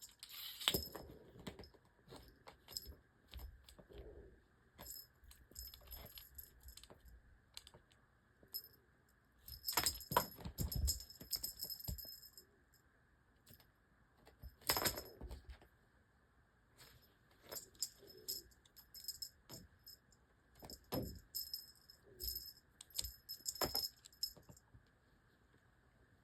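A small jingle bell rattling in irregular short bursts as kittens bat and chase it at play, with soft knocks and scuffles between. The bursts come and go, the strongest about ten and fifteen seconds in, and they stop a little before the end.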